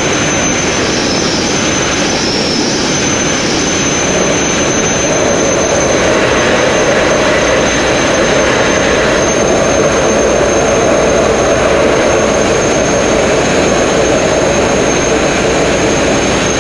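Sandblasting nozzle firing sand under compressed air against a narrowboat hull, a loud steady hiss without a break, stripping old paint back to bare metal.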